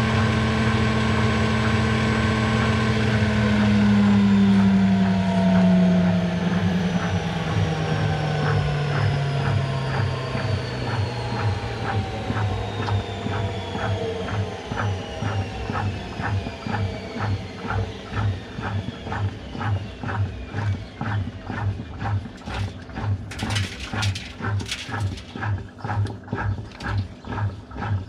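Washing machine winding down from a spin: the motor whine and drum hum fall steadily in pitch as the drum slows. They give way to an even rhythmic thumping of about two beats a second.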